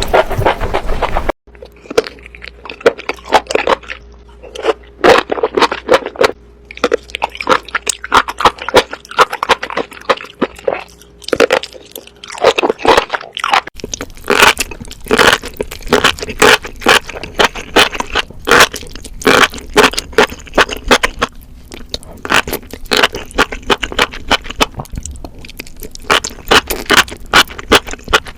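Close-miked chewing and biting of crunchy food, with rapid, irregular loud crunches. A denser, steady noise cuts off sharply about a second in.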